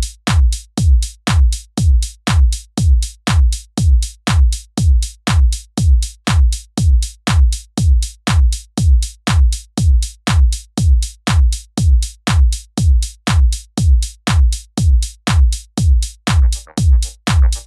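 Background electronic dance music: a lone kick drum beating steadily about twice a second, with other sounds joining in near the end.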